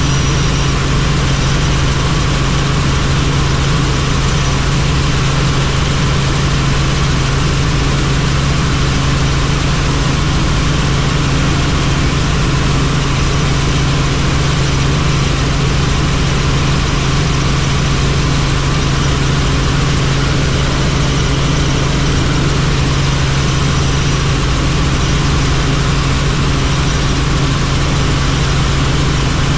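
Helicopter engine and rotors running steadily: a loud, unchanging drone with a strong low hum and a wide hiss over it.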